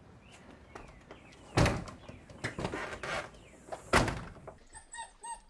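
Front entrance door being handled and shut, with two loud thuds about a second and a half and four seconds in and smaller knocks between them. Near the end a golden retriever puppy starts whimpering in short, high cries.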